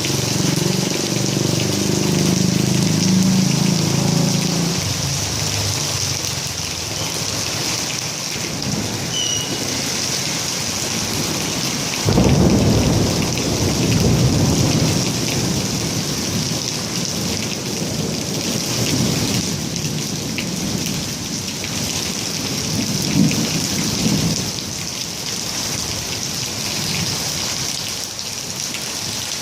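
Rain falling on a roof, a steady hiss, with thunder. One roll rumbles at the start and fades after about five seconds. Another breaks suddenly about twelve seconds in and rumbles on for roughly ten seconds.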